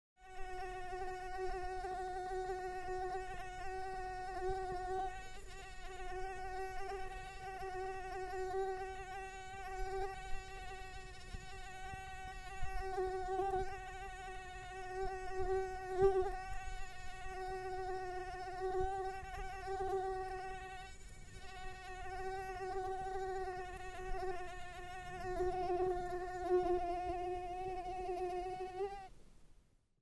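Mosquito buzzing: a steady, slightly wavering whine whose loudness swells and dips as if the insect drifts closer and farther, stopping about a second before the end.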